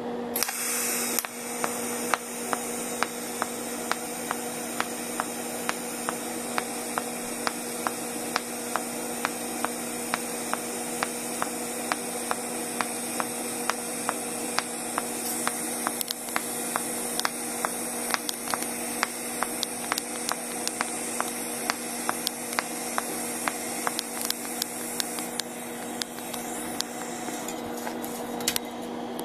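TIG welding arc from a Migatronic PI200 inverter, run on a foot pedal in pulse mode along a steel plate seam: a steady electric hum and hiss with a regular tick about twice a second as the current pulses. It stops near the end.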